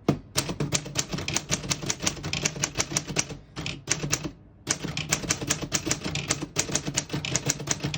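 1938 Corona Standard portable typewriter being typed on: quick clacking keystrokes, several a second, with a short pause about halfway through before the typing carries on.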